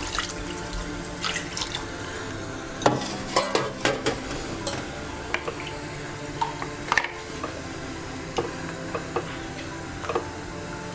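Water being poured, measured out by the glass, into the chicken cooking in a pressure cooker. Several sharp clinks of the glass and pot come about three to four seconds in.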